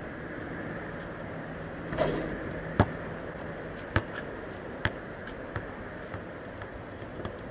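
A basketball bouncing on an asphalt court: a knock about two seconds in, then one hard bounce, then a run of bounces that get softer and closer together as the ball rolls to a stop.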